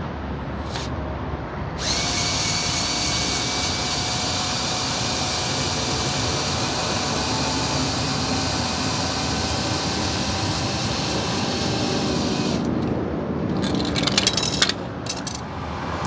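A power drill runs steadily for about ten seconds, driving the jack's handle rod to lower the pickup back down, then stops suddenly. A few short handling knocks follow.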